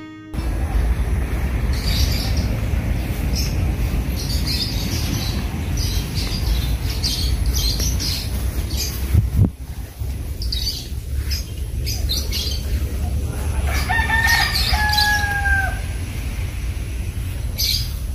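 Outdoor ambience: wind buffeting the microphone with a steady low rumble, and small birds chirping over and over. A single knock comes about halfway through, and a rooster crows about three-quarters of the way through.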